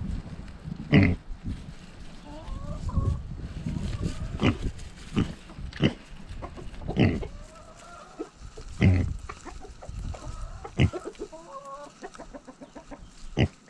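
Pixie mini pig grunting in short bursts every second or two, with hens clucking softly in between.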